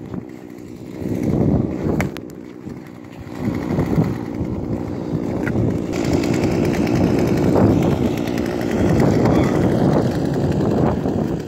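Two-stroke chainsaw engine being restarted after it died, running unevenly at first and then steadily from about four seconds in. One sharp knock about two seconds in.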